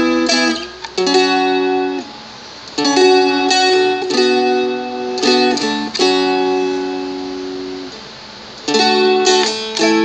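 Seagull Merlin, a four-string fretted dulcimer-style instrument, strummed in chord groups. Quick strums open the passage and return near the end. In between, single chords are left ringing and dying away, with short gaps of silence between the groups.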